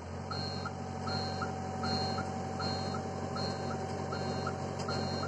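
Hitachi excavator's travel alarm beeping about once every three-quarters of a second while the machine travels on both tracks, over the steady running of its diesel engine and a steady whine.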